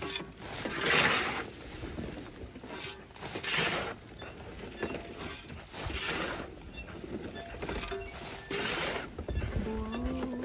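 Pigs in a pen grunting and snuffling: a run of short, rough bursts every second or two, with a held low call near the end.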